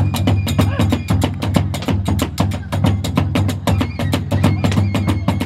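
Kagura accompaniment: a large drum and small hand cymbals beating a fast, even rhythm of about five or six strikes a second, with a thin high flute note held over it.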